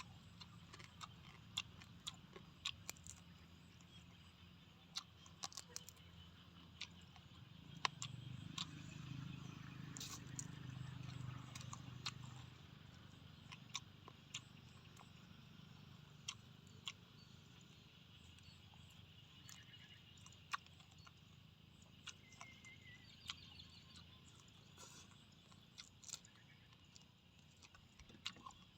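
Faint, scattered sharp clicks and taps, irregularly spaced, over a quiet background, with a low hum rising and fading about eight to twelve seconds in.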